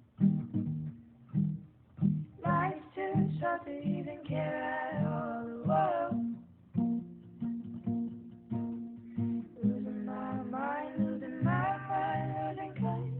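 A guitar picked in a steady pattern of single notes, with a voice singing a melody over it from about two and a half seconds in. The singing pauses in the middle and comes back a few seconds before the end.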